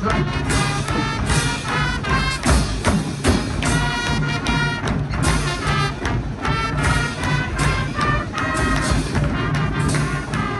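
Marching band playing an upbeat tune with brass and drums, the horns holding loud chords over a steady beat.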